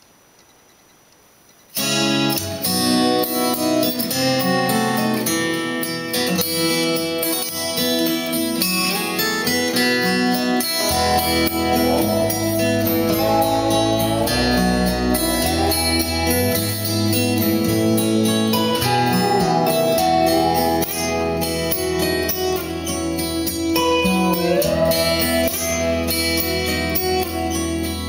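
Guitar-led instrumental intro of a song played through Triangle Titus 202 bookshelf loudspeakers, with sliding guitar notes. It starts suddenly about two seconds in, after near silence, and a bass line comes in about halfway.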